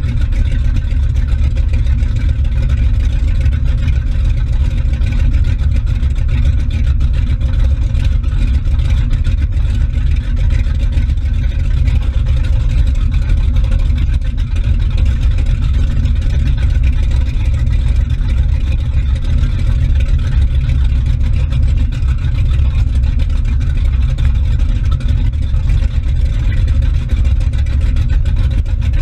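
Motorboat engine running steadily at speed, a deep even rumble, with the wake churning and splashing behind the stern.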